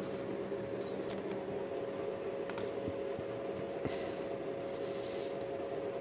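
Steady background hum with one held tone, with a few faint clicks and rustles from hands handling an opened laptop's aluminium case.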